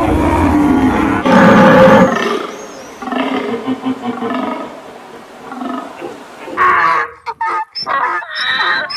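Animal calls, one after another, loudest in the first two seconds, with several short pitched cries in the last two seconds.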